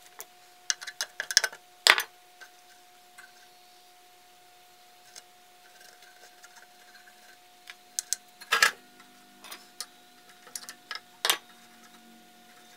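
Small metal parts clicking and clinking as they are handled by hand at an edger's motor shaft. There are irregular clicks, with the loudest about two seconds in and again a little past eight seconds, over a faint steady hum.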